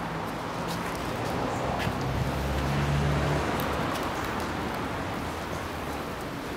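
Street traffic noise, with a vehicle engine swelling and fading, loudest about two to three seconds in.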